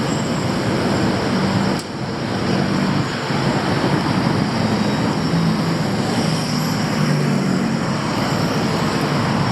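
Steady city traffic noise: engines of passing cars and buses running close by, with a constant hum of road noise and a brief dip about two seconds in.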